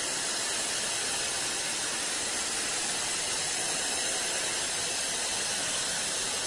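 Analogue television static: a steady white-noise hiss, the sound of a TV tuned to no station.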